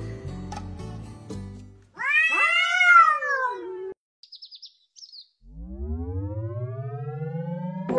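Background music stops about two seconds in. A cat then gives one long meow, rising and then falling in pitch, followed by a few faint high chirps. Near the end a long low sound rises steadily in pitch for about two and a half seconds.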